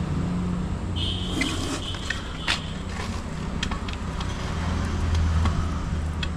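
A steady low engine hum, like a vehicle running, with a few scattered clicks and a thin high whine from about one second in until about two and a half seconds.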